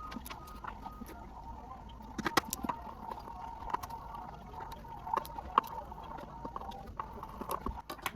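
Failing hard disk drive with its read/write heads knocking: irregular sharp clicks, some in quick clusters, over a steady high hum. The head knocking is the drive's fault, which the owner ties to bad sectors.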